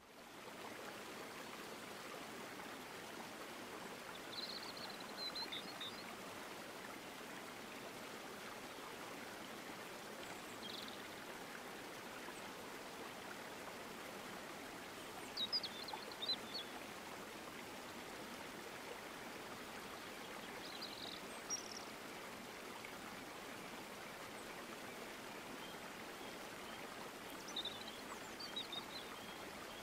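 Steady rush of running water with short bird chirps every five or six seconds.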